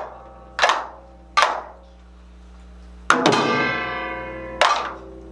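Korean samulnori percussion playing a slow, sparse passage: single sharp strikes well under a second apart, then a pause, then a metal gong stroke about three seconds in that rings on and dies away over more than a second before the strikes resume.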